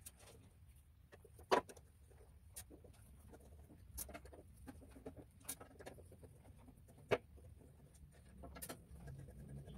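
Scattered small metallic clicks and taps of loose screws and a screwdriver on a metal amplifier case, as the case screws are removed. The sharpest clicks come about a second and a half in and again about seven seconds in.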